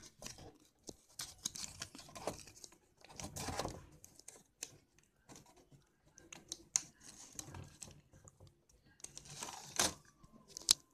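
Light plastic clicks, taps and rustling from handling a laptop keyboard and its ribbon cable as the cable is plugged into its connector, with a couple of sharper clicks near the end.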